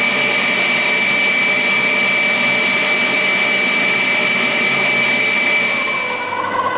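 Klarstein stand mixer's motor running steadily at speed with a high whine, whisking eggs in its steel bowl. About six seconds in, the sound changes to a lower-pitched hum.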